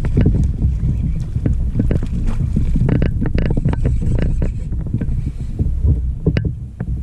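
Wind buffeting the microphone in a heavy low rumble, with many short knocks and taps scattered through it.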